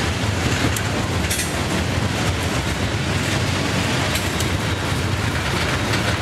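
Freight train of tank cars rolling past, a steady rumble of steel wheels on rail with a few brief, sharp high-pitched clicks.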